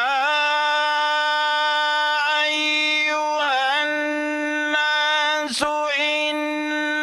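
A male qari's voice reciting the Qur'an in melodic tajweed, drawing out the opening "yā…" of a verse on a long, high held note. It is decorated with a few wavering ornamental turns, with a brief break for breath about five and a half seconds in.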